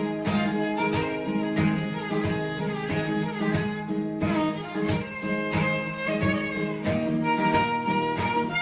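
Background music: a string-led track with violin over plucked guitar and a steady beat.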